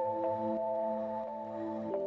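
Ambient background music: soft sustained chords, with the chord changing just before the end.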